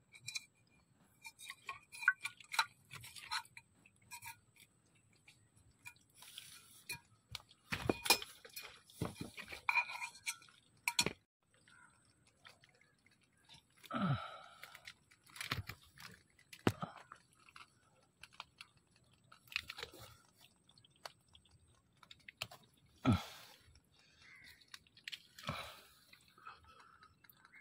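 Scattered crunching, clicking and rustling of mangrove twigs, roots and mud while a mud crab is dug out and grabbed by hand, with a few sharp knocks.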